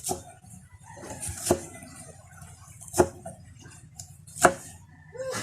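Knife chopping on a cutting board: four sharp chops about a second and a half apart.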